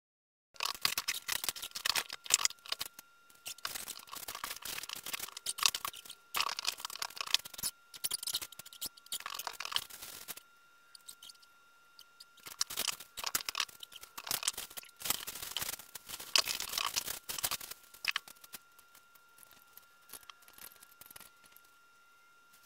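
Plastic wrapping and packaging rustling and crinkling in repeated bursts as a chandelier is unpacked from its box, growing quieter in the last few seconds.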